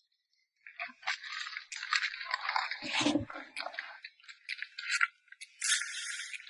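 Half a bucket of small live crabs clattering and scraping as they are tipped out of the bucket to be released: a dense rattling of shells, with a heavier knock about three seconds in.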